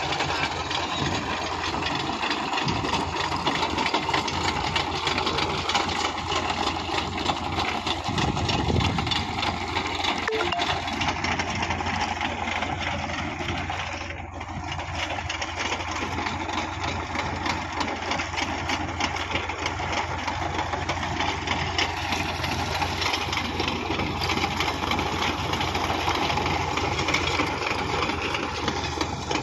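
Tractor diesel engine running under load while its chain trencher attachment digs a trench, the toothed chain clattering through the soil. The sound is steady, dipping briefly about halfway through.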